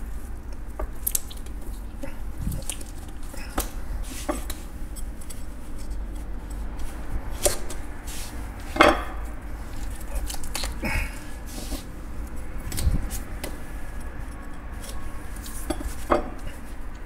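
Kitchen knife and hands working a whole triggerfish on a wooden cutting board: scattered clicks and light knocks of the blade and fish against the board, the loudest about nine seconds in, over a low steady hum.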